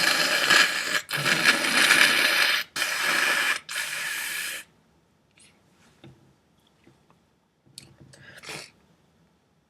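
A person blowing their nose hard into a tissue in several long, loud blows, followed by a short sniff near the end.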